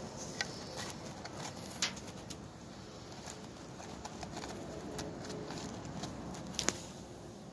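Fingers scraping and picking loose wood chips out of a freshly bored mortise in a timber, giving scattered small clicks and taps, the sharpest about two seconds in and a pair near the end.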